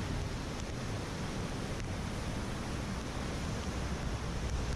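A river in full monsoon flood rushing and churning, a steady unbroken wash of water noise, with wind buffeting the microphone.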